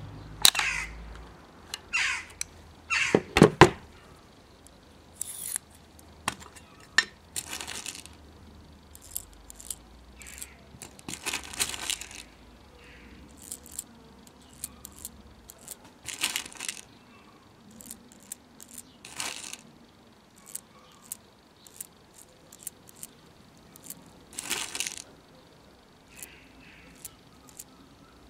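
Small clicks, clinks and brief rattles as .177 round lead balls are handled from their tin and fed into the tube magazine of a Gamo Expomatic 2000 repeating air rifle. The loudest clicks come about three seconds in, from handling the rifle and magazine.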